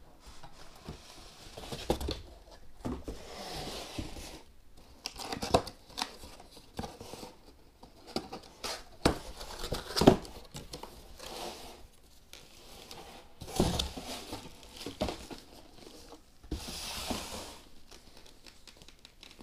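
Cardboard boxes being opened and packaging handled: flaps scraping and sliding, rustling swishes and scattered knocks and clicks, the sharpest knock about ten seconds in.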